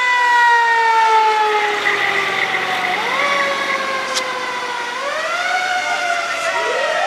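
Emergency vehicle sirens wailing, two or more overlapping. Each rises quickly and then falls slowly in pitch, and another siren climbs steadily near the end.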